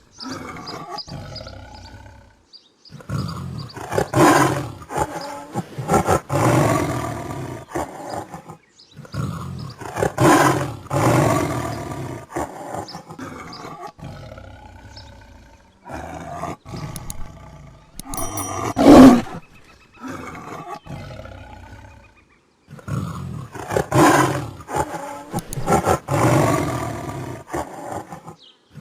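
Tiger roaring and growling: repeated loud roars in groups with deep rumbling growls between them, the loudest a single sharp roar about two-thirds of the way through.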